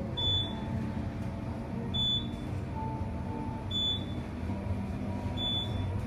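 Traction elevator car riding upward, with a steady low hum of travel and four short high beeps about two seconds apart, one for each floor passed.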